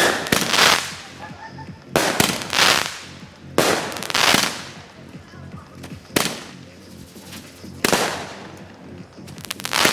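A 42-shot consumer firework cake firing in sequence: sharp bangs, each trailing off in an echoing tail, coming about a second or two apart.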